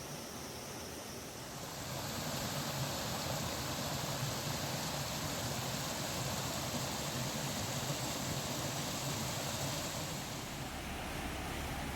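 Steady rushing noise that grows louder about two seconds in and turns deeper near the end.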